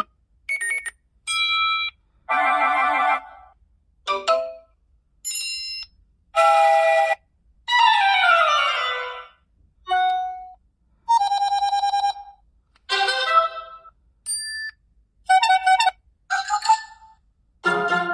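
A rapid series of iPhone ringtone snippets, about fourteen in all, each a different short chime or melody lasting about a second and cut off by a brief silence before the next; one, about eight seconds in, is a falling run of notes.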